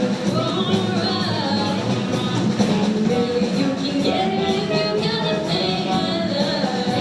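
Live rock band playing a song, with electric guitar over a steady drum beat.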